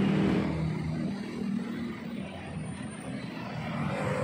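Street traffic with a motor vehicle engine humming, fading over the first two seconds or so and building again near the end.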